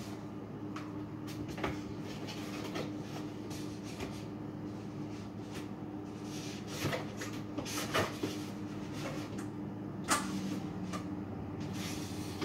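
Items being shifted and set down inside an open freezer compartment: a few short knocks and clatters, the loudest about ten seconds in, over a steady low hum.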